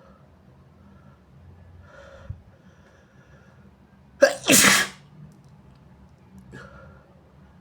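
A single loud sneeze about four seconds in: a short sharp first burst, then at once a longer explosive one lasting about half a second. It is induced by tickling the nose with tissue paper during a sinusitis attack.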